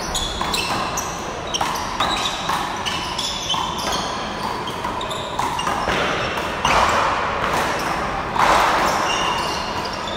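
Handball rally: the small rubber ball smacks repeatedly off the wall and off the players' palms, with short squeaks of sneakers on the court floor between the hits.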